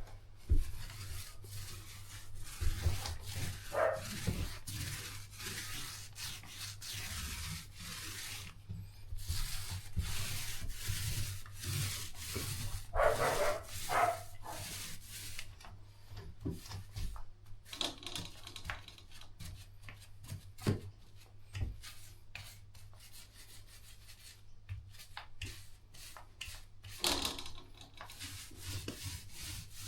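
Repeated scraping and rubbing strokes of a hand tool worked against a drywall surface, over a steady low hum.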